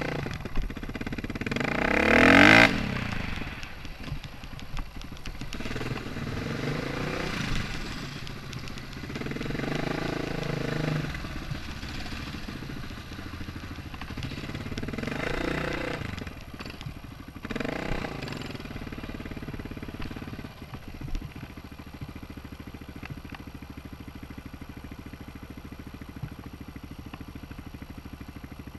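Enduro motorcycle engine heard from on the bike as it is ridden over rough grass, revving up and easing off again and again. The loudest rev comes about two seconds in, and the engine runs lower and steadier in the last third.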